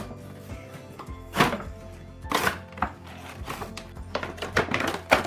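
Clear plastic toy packaging crinkling and rustling in several short bursts as it is handled and opened, over steady background music.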